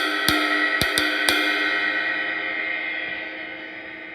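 A very thin K Zildjian Istanbul intermediate-stamp cymbal (1,710 grams) struck several times in quick succession in the first second or so, then left to ring, its wash slowly fading away.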